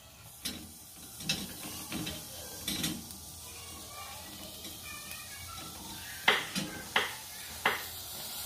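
Black sugarcane stalk knocking and rolling against a stove's metal grate as it is turned over the flame: a few scattered sharp knocks, then a quicker run of four or five near the end, over a steady faint hiss of the burner.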